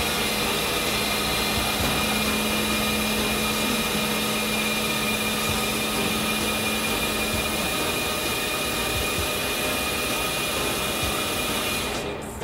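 Hot-drinks vending machine dispensing hot chocolate into a paper cup: a steady mechanical hiss with a few held tones and a low hum that drops out a little over halfway through. The machine stops abruptly near the end as the drink finishes.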